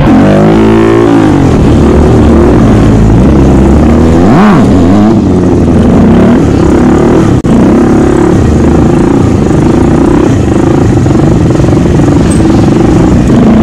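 Motorcycle engine heard close up on the bike, revving hard with the pitch climbing and dropping several times, then holding a steadier high rev in the second half.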